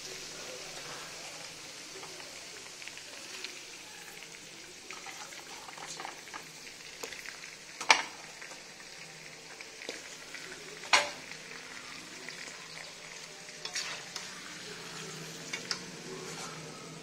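Raw chicken pieces sizzling as they fry in hot oil in a black wok (karahi), a steady hiss broken by a few sharp knocks, the two loudest about halfway through and again three seconds later.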